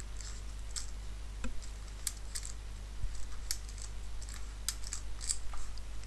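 Scattered light metallic clicks, about ten of them at irregular intervals, as a key is turned in and pulled out of an Abloy Easy disc-detainer cylinder lock.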